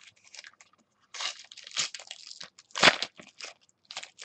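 Crinkling and rustling of a trading-card pack wrapper being handled and opened, in uneven bursts, loudest about three seconds in.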